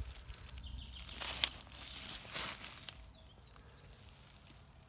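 Faint rustling and crackling of tomato foliage brushed by a moving camera, with a few sharp crackles, the loudest about a second and a half in, then quieter for the last couple of seconds.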